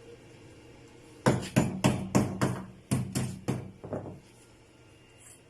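A hammer striking sheet metal in a quick run of about a dozen blows, roughly four a second, each with a short metallic ring. The run starts about a second in and stops near the four-second mark.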